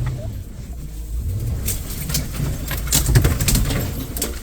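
Vehicle driving slowly over rough ground: a steady low engine rumble, with a run of clicks and rattles in the second half, loudest about three seconds in.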